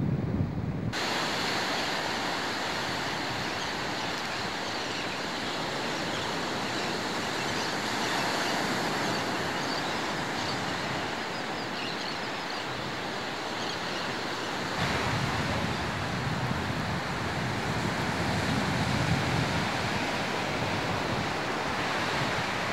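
Surf breaking and washing on a sandy beach, a steady wash of noise, with wind rumbling on the camcorder microphone that grows heavier in the second half.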